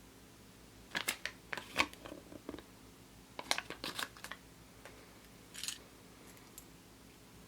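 Kinder Surprise egg foil and plastic being handled. There are clusters of sharp crinkles and small plastic clicks about a second in and again around three and a half seconds in, then a short rustle near the end.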